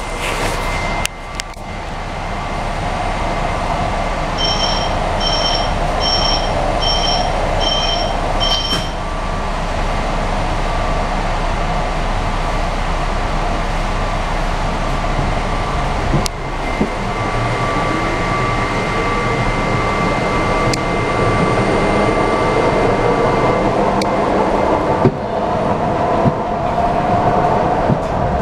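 PATCO Speedline railcar heard from inside: six short, evenly spaced electronic warning beeps about four seconds in, the signal that the doors are closing, then the train pulls out of the station and runs on with a steady rumble, a thin whine and a gradually rising level.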